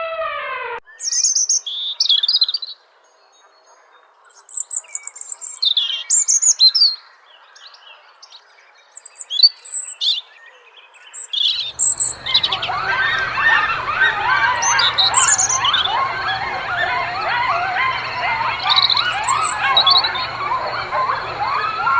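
Birds chirping: scattered short, high calls at first, then from about twelve seconds in a dense chorus of many birds calling over each other, with a steady low hum underneath.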